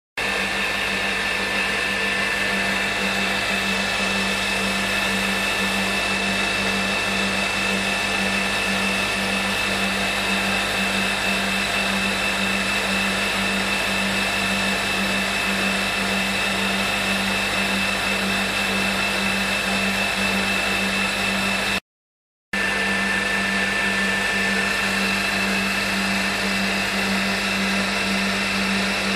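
CNC milling machine spindle running at a steady speed with a steady whine, a small end mill milling flats on a small part. The sound drops out for a moment about three-quarters of the way through.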